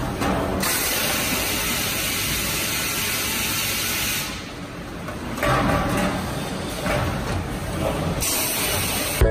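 An automated machine working over steel drums on a production line, with a loud, steady hiss that runs for about four seconds, breaks off, and comes back near the end. Rougher machine noise fills the gap between the two hisses.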